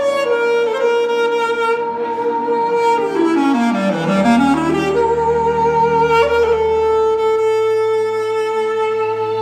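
Clarinet playing an Armenian melody over a synthesizer keyboard backing. It holds a long note, runs quickly down into its low register and straight back up about four seconds in, then settles on the long held note again.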